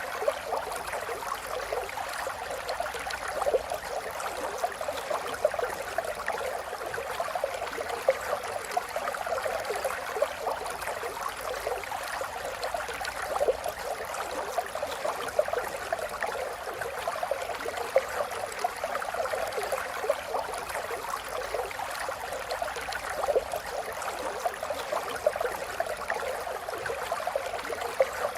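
River water flowing steadily over stones, a continuous babbling rush with many small splashes and gurgles.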